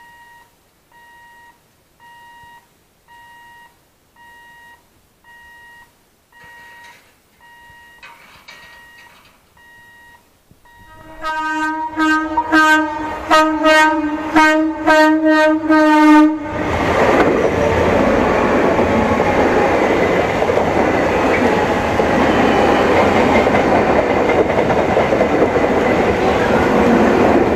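A faint electronic beep repeats about once a second. About eleven seconds in, an Eastern Railway EMU local train sounds its horn in a rapid string of short blasts, about two a second, for some five seconds. The train then runs past close by, its wheels on the rails making a loud, steady rumble.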